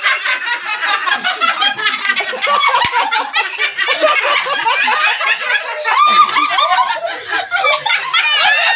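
A group of adults laughing together without pause, several voices overlapping. There is a single sharp knock about three seconds in and a high squeal near the end.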